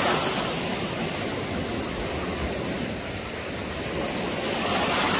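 Small sea waves breaking and washing in the shallows: a steady rush of surf that eases a little midway and builds again near the end.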